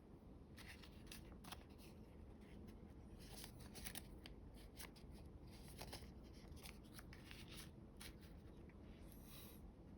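Faint crinkling and rustling of a sheet of origami colour paper being handled and folded, in many short, irregular crackles.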